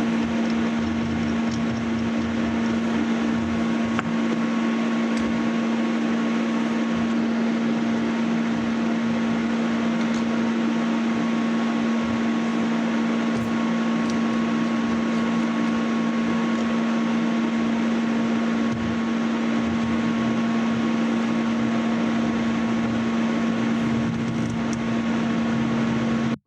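Steady electric motor hum with one strong low tone, running evenly and cutting off suddenly at the end.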